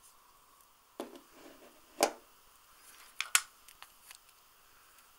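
Sharp metallic clicks and knocks from handling a small 4 mm Flobert revolver, about a second apart, with two quick ones close together about three seconds in and a few lighter ticks after.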